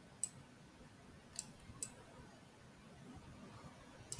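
A few faint computer mouse clicks, three in the first two seconds and one more near the end, over quiet room tone.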